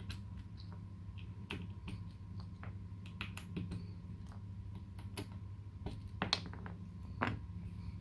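GMK keycaps being pulled off a KBD75v2 mechanical keyboard's switch stems with a keycap puller: scattered light clicks and ticks, with two louder clacks near the end.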